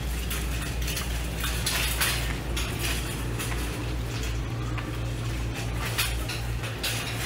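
Shopping cart rolling, irregular rattles and clinks over a steady low hum.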